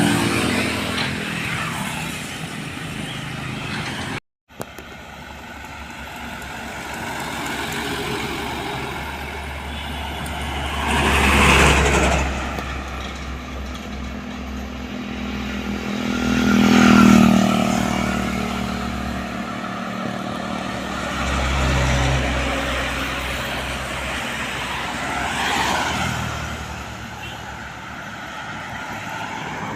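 Heavy trucks passing close by on a road one after another, each one's engine drone swelling and then fading with a drop in pitch as it goes by.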